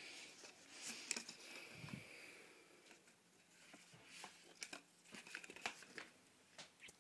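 Shin guard packaging crinkling and rustling as it is handled. There is a continuous rustle for the first couple of seconds, then scattered sharp crackles.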